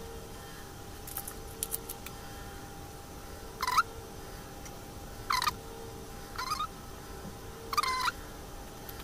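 Four short bird calls, the sort poultry make, about one to one and a half seconds apart, over a faint steady hum.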